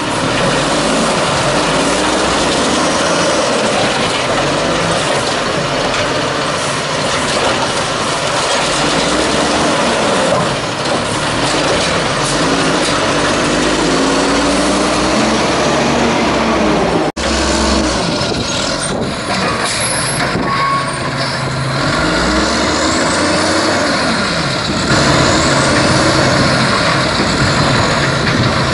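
Natural-gas (LNG) engine of a 1994 WhiteGMC garbage truck running loud while its Amrep automated side arm handles a cart. A sudden break about 17 seconds in, then the truck's engine rises and falls in pitch as it revs.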